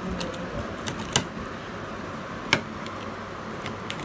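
Metal pizza wheel cutter being run through a cheese pizza in a metal pan, giving a few sharp clicks and knocks as the blade meets the pan. The two loudest come about one and two and a half seconds in, over a steady background hum.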